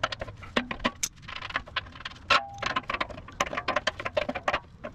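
Adjustable wrench clicking and scraping on a steel plug fitting threaded into a small compressor air tank as the plug is worked loose, a string of irregular metallic clicks and ticks, several a second.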